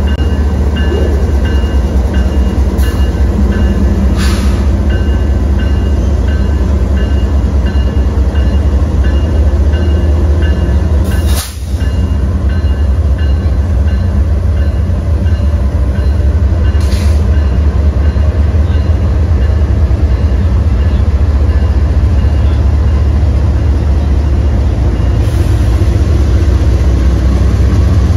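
A train running by the station: a loud, steady low rumble that dips briefly about eleven seconds in.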